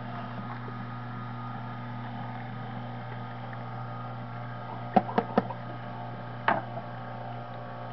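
Omega 8003 low-speed masticating juicer running with a steady low hum as its auger presses a whole apple. A quick run of three sharp cracks comes about five seconds in, and another a second later.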